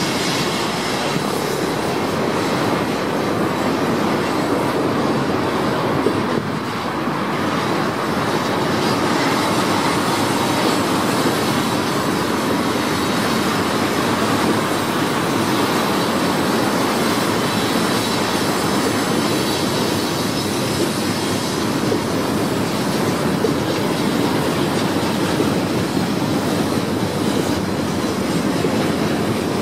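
Freight cars of a BNSF freight train (covered hoppers, tank cars and boxcars) rolling steadily past: a continuous loud noise of steel wheels running on the rails, with a faint steady high tone above it.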